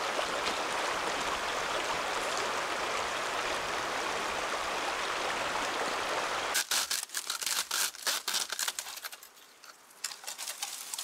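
Steady rush of a stream for about six and a half seconds, then an abrupt change to a quick series of sharp clicks and crackles that thin out near the end.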